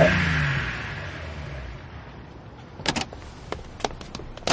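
A car's engine note falls and dies away over the first couple of seconds as it pulls up. From about three seconds in there are several sharp clicks and knocks.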